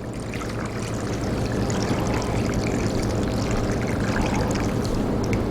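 Curry sauce thinned with water being poured from a cooking pot into a pressure cooker full of vegetables and noodles: a steady liquid pour with many small spatters, growing louder over the first second or so, then holding steady.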